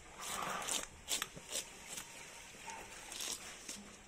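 A serrated metal fish scaler rasping along the side of a large fish, scraping off the scales in a series of short, uneven strokes.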